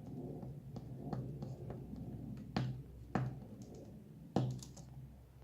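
Fingers clicking and tapping on a laptop's plastic parts and display cable while prying off adhesive tape: scattered light ticks, with three sharper clicks in the second half.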